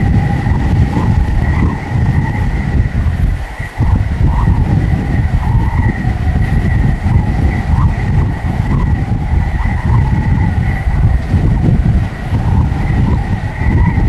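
Boeing 747-400D jet engines on landing approach and touchdown, a steady whine at two pitches over a low rumble, with heavy gusty wind buffeting the microphone.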